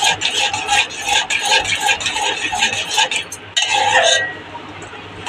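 A metal spoon stirring milk in a stainless steel pot, scraping and clinking against the steel in quick strokes, about three a second. About three and a half seconds in there is one louder scrape, and then the stirring goes quieter.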